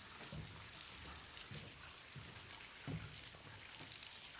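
Footsteps at a walking pace on a rocky trail, with a soft thud every half second or so under a faint crackling hiss, and one stronger knock near three seconds in.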